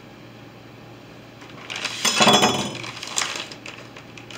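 Plastic zip-top bag crinkling and rustling as it is picked up and handled. It starts about a second and a half in, is loudest a little after two seconds, then breaks into scattered crackles.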